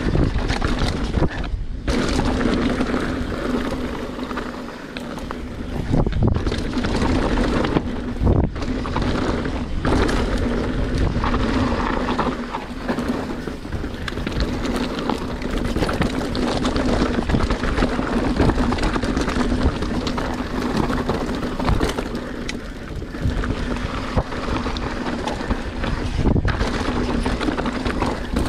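A YT Capra enduro mountain bike descending a rough, rocky downhill trail at speed: wind buffeting the microphone, tyres rolling over dirt and rock, and the bike rattling, with a steady low buzz underneath. Hard knocks from rock hits and jump landings come every few seconds.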